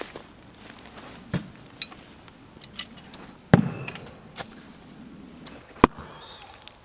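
Spyderco throwing knives striking a wooden target, three separate impacts about two seconds apart, the middle one the loudest and heaviest.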